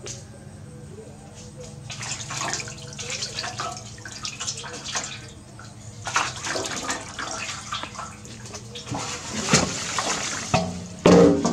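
Water splashing and sloshing in an aluminium basin as a newborn monkey's body is washed by hand, in uneven bursts, then water spilling as the basin is tipped near the end. A brief loud scrape comes at the very end.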